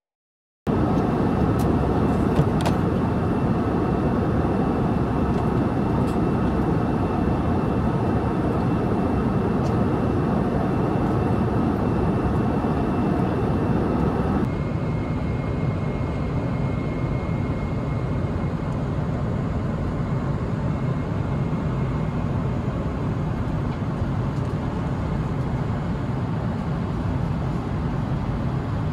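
Steady rushing drone of airliner cabin noise, from the engines and the air around the plane. About halfway through it shifts to a slightly quieter, duller version of the same drone.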